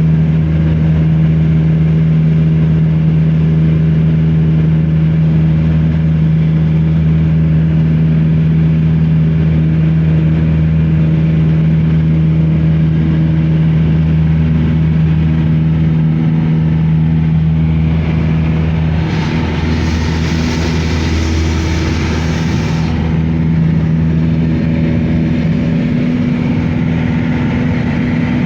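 Passenger airliner's engines heard inside the cabin: a loud, steady drone with a low hum. A hiss rises for about four seconds some two-thirds of the way through, then drops away.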